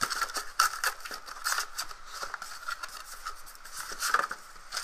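Cardboard scraping and rubbing as a boxed kit is worked out of a tight-fitting cardboard carton: a string of irregular scratchy strokes.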